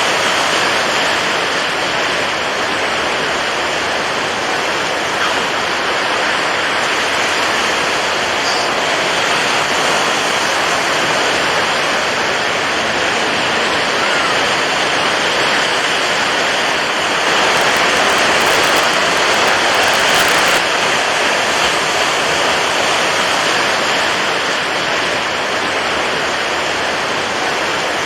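Steady rushing water, an even hiss with no pauses or surges, swelling slightly louder for about three seconds a little past the middle.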